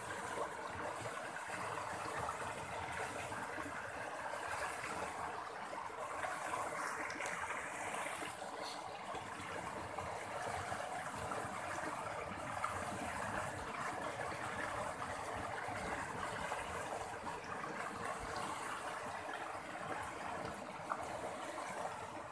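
A swollen, fast-flowing river rushing over rapids: a steady wash of turbulent water.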